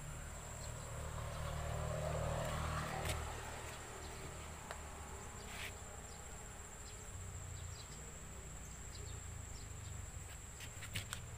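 Insects keeping up a steady high-pitched chirring over a low background rumble that swells for the first few seconds, with a couple of faint clicks.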